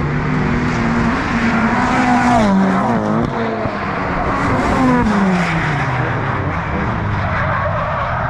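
Drift car's engine running at high revs down the straight, its note wavering and then falling as it goes by at speed, followed by tyre squeal as the car is thrown sideways into the corner in fourth gear.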